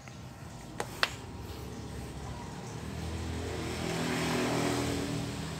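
Two light clicks about a second in, then audio from a smartphone starting to play through a homemade power amplifier, swelling in with steady low tones and a hiss as the track begins.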